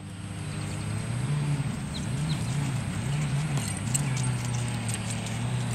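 A low engine hum that wavers up and down in pitch, with a few faint ticks about two-thirds of the way through.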